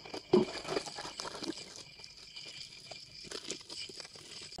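Thin plastic bags crinkling and rustling as they are handled and filled, in irregular crackles with the loudest near the start.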